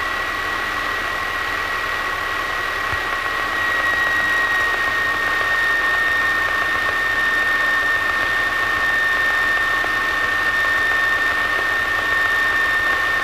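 Light single-engine aircraft's piston engine and propeller running at low taxi power, heard from inside the cockpit: a steady drone with a high, even whine over it, growing a little louder about three to four seconds in.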